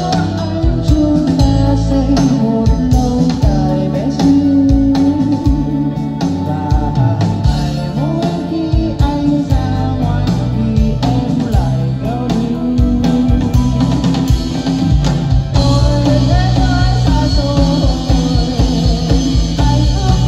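A band playing a rock song, led by guitar over a drum beat.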